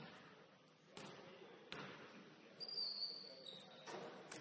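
Faint basketball gym sounds: a few scattered sharp knocks and one short high squeak a little past halfway.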